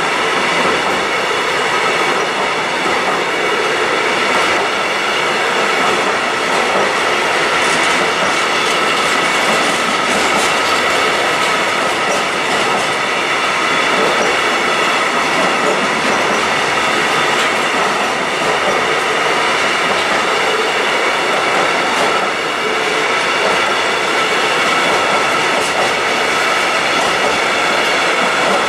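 Container flat wagons of a long intermodal freight train rolling steadily past, the wheels on the rails making a continuous rumble with a steady high whine over it.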